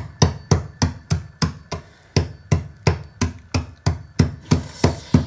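A heavy length of steel rebar, wrapped in black tape, pounding dry dog biscuits on a plastic bag over a hard counter to crush them to powder. The strikes come steadily, about three a second.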